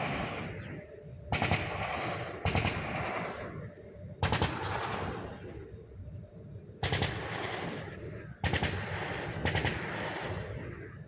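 Coughing fits typical of whooping cough: about six bursts of quick staccato coughs, each starting suddenly and trailing off before the next.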